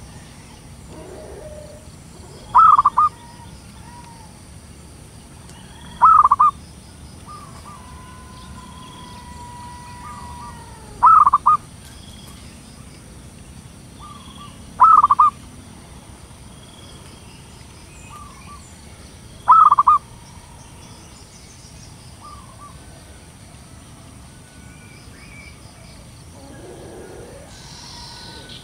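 Zebra dove (perkutut) calling: five short, loud calls spaced a few seconds apart, with fainter bird notes between them.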